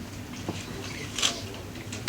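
Room tone with a steady low hum and scattered short clicks and knocks, the loudest about a second and a quarter in.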